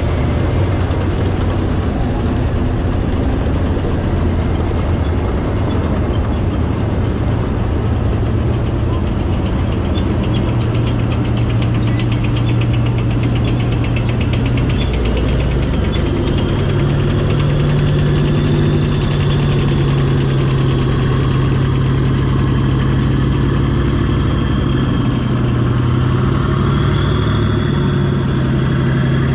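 Heavy diesel engines of military armored vehicles driving past at parade pace, a steady low drone: first a tracked amphibious assault vehicle and a tracked armored vehicle, then wheeled armored vehicles near the end. A fast ticking runs through the middle, and a high whine rises and falls in the second half.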